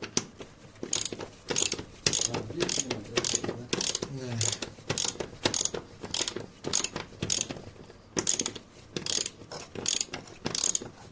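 Hand ratchet wrench being worked in quick back-and-forth strokes, about two clicking runs a second, with a brief pause near the end.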